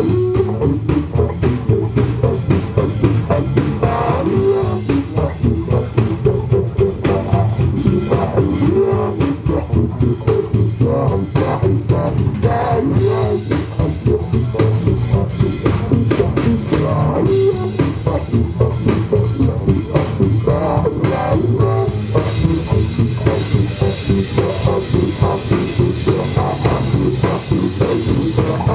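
Instrumental funk-rock band music: drum kit, guitar and bass guitar playing a steady, driving groove.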